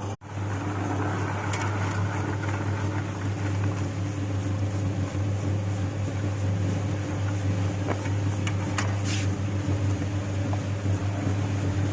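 Soaked-peanut skin-peeling machine running: a steady motor hum with a strong low tone, plus a few light clicks.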